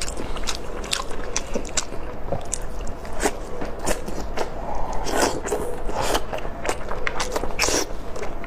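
Close-up eating sounds of braised chicken drumstick: repeated biting and chewing with wet, sticky mouth smacks and small clicks, denser about five seconds in.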